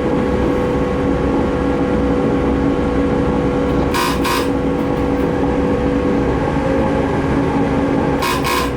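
Steady engine drone of a diesel multiple-unit train heard from on board, with a low rumble under two steady hum tones. About four seconds in and again near the end, a double high beep sounds: the door warning before the train departs.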